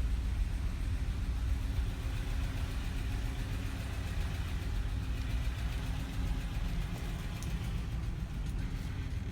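2016 Cadillac Escalade ESV's 6.2-litre V8 idling steadily just after a cold start; the owner believes the engine has a rod knock.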